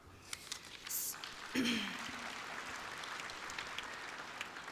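A large auditorium audience applauding, the clapping filling in about a second and a half in and holding steady, with a brief voice from the crowd as it starts.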